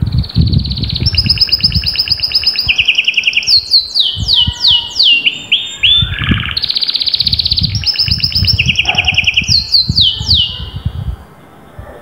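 Domestic canary singing a long, fast song: rapid trills held for a second or so at a time, alternating with runs of quick falling whistles, stopping about a second before the end. A low, uneven rumble runs underneath.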